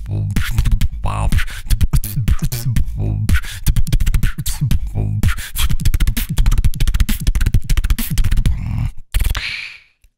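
Vocal beatboxing up close on a microphone: a fast, dense beat of mouth-made percussive hits over a deep bass, which stops about nine seconds in with one last short hiss.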